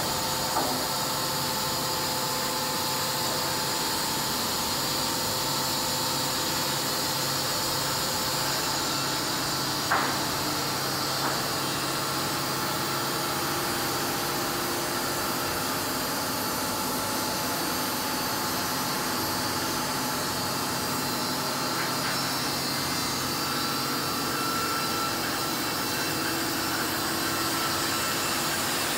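Wood-Mizer WM3500 thin-kerf headrig sawmill running with a steady mechanical drone and a few faint steady tones. There is a short sharp squeak about ten seconds in.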